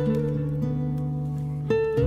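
Background music with plucked string notes over a steady low bass.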